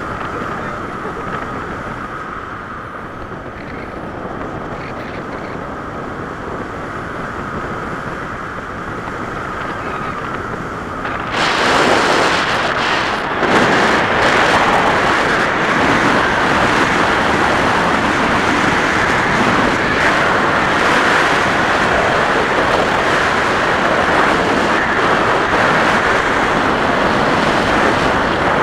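Wind rushing over the camera microphone in paraglider flight, a steady noise that turns much louder and hissier about eleven seconds in and stays that way.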